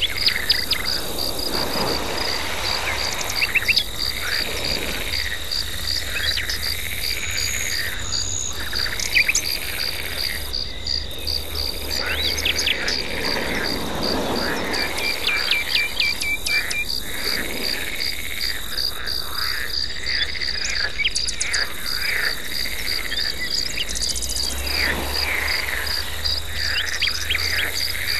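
Frogs calling in repeated arching croaks every second or two, over a steady, fast-pulsing insect trill, with short scattered bird chirps.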